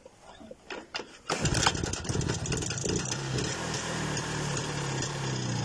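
IZh Planeta 5 single-cylinder two-stroke motorcycle engine being started: a few clicks and knocks, then it catches about a second in and runs at a steady idle with no throttle.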